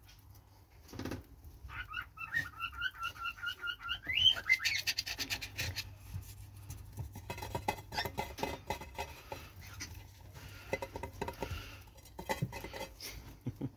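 Young rabbits chewing fresh grass stalks and shifting in hay bedding, heard as many quick crunching clicks with a loud rustle about four seconds in. About two seconds in, a bird chirps a rapid run of about ten short notes lasting two seconds.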